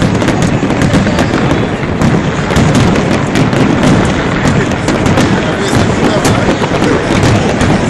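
Large aerial fireworks display at full pace: a dense, unbroken barrage of overlapping bangs and crackles.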